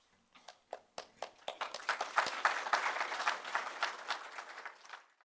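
Audience applauding: scattered claps that build to full applause about two seconds in, then thin out and cut off suddenly near the end.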